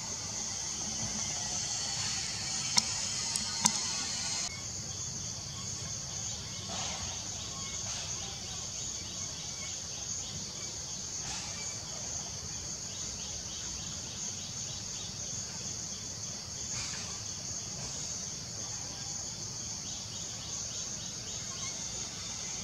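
Steady high-pitched chorus of insects in the tree canopy, with two sharp clicks about three seconds in.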